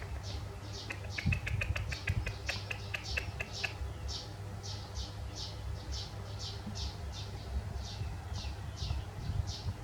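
Short high-pitched animal chirps repeating steadily at two to three a second, with a flurry of rapid clicks and squeaks mixed in for the first few seconds.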